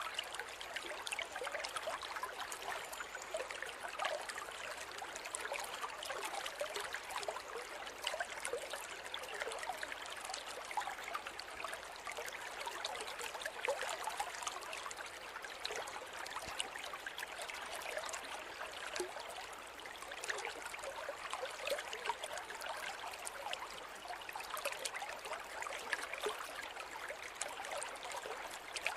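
A river flowing steadily over stones, with a continuous rush and many small splashes and trickles.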